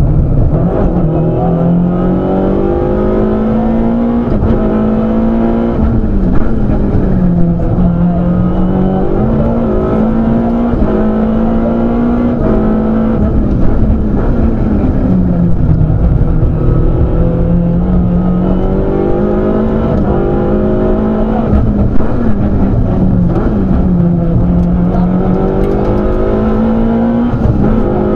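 Citroën Saxo rally car's four-cylinder engine heard from inside the cockpit at full stage pace, loud and continuous. Its pitch climbs under acceleration and drops at gear changes and lifts, over and over, as the car drives the stage.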